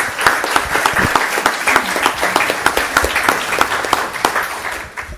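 Audience applauding: many hands clapping in a dense patter that thins out near the end.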